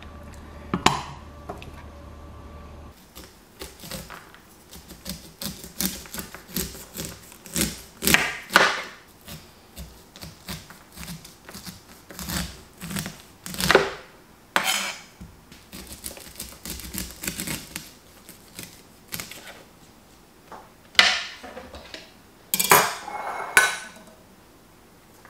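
Kitchen knife cutting the kernels off an ear of supersweet corn on a cutting board: an irregular run of crisp slicing strokes as the kernels fall onto the board. A sharp knock comes about a second in. Near the end the kernels are scraped off the board into a glass measuring jug.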